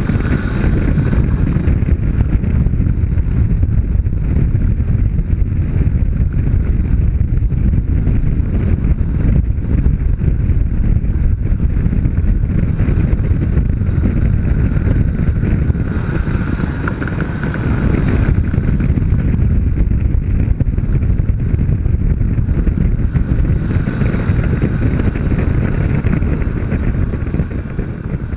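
Heavy wind buffeting on the microphone over the running engine of a Honda CB500 parallel-twin motorcycle at speed.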